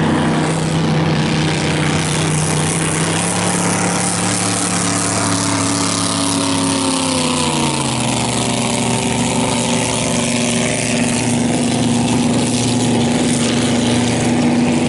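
Grand Prix hydroplane's racing engine running at full speed as the boat passes close by, its pitch dropping sharply about seven seconds in as it goes past, then a steady lower drone as it heads away.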